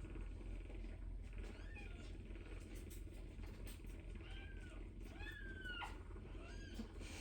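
Young kittens mewing: several short, high-pitched cries, with one longer drawn-out mew about five seconds in, from hungry kittens calling for their mother. Under them runs a steady low purr.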